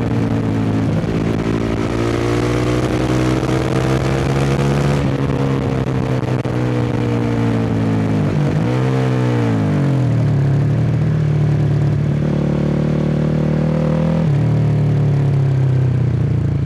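450cc single-cylinder four-stroke dirt-bike engine under way, its note climbing slowly for the first few seconds, easing off, then swooping down and back up about halfway through before steadying, with another drop in revs near the end.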